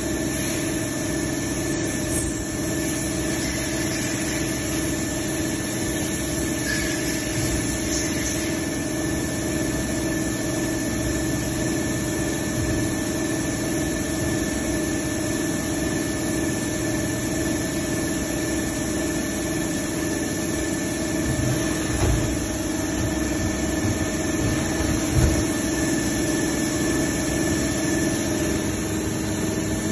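CNC turret lathe running, a steady machine hum with a constant whine. Two short clunks come in the second half as the tool turret indexes to another station.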